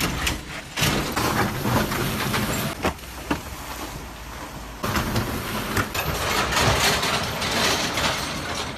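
Vehicles driving through deep floodwater: a steady rush of splashing water thrown up by the wheels, dotted with sharp splashes, with the vehicles' running noise underneath. The sound changes abruptly about five seconds in.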